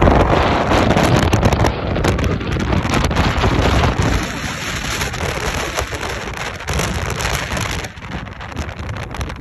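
Wind buffeting the microphone of a phone filming from a moving car, over the car's road noise. It is loudest in the first couple of seconds and eases after about eight seconds.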